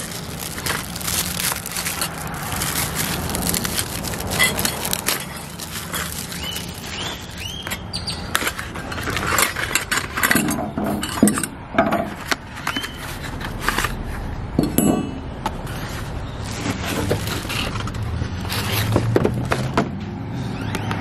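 Plastic packaging crackling and rustling as a replacement console-lid hinge part is unwrapped by hand, with irregular clicks and light knocks as the pieces are handled.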